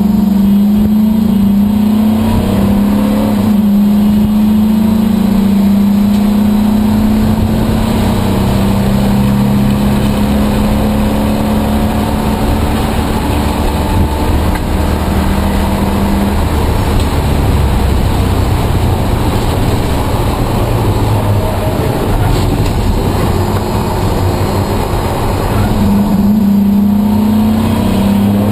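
Race car's engine heard from inside the cabin while lapping a circuit, with wind and road noise. The engine note holds strong for the first half, drops to a lower, quieter note about halfway through, and climbs again near the end.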